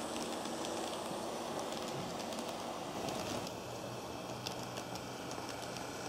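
KATO N-scale model of the Rhaetian Railway ABe 8/12 'Allegra' electric train running on its track: a steady rolling rush with light clicks from the wheels and rail joints. It is louder for the first few seconds, eases a little as the train moves off round the loop, and the clicks grow sharper as it comes back.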